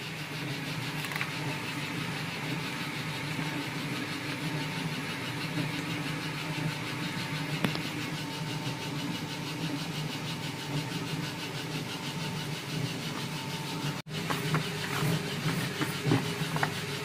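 Soap-making machine's motor running with a steady hum. After a sudden break about 14 seconds in, short scrapes and light knocks join it as powder is tipped from a bucket.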